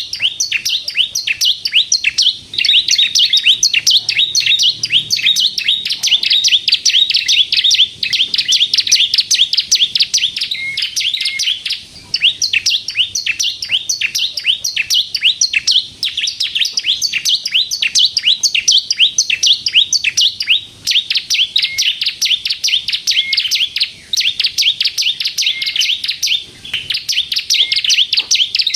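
Bar-winged prinia (ciblek kristal) singing nonstop in long runs of rapid, high-pitched chattering notes, broken by brief pauses every few seconds.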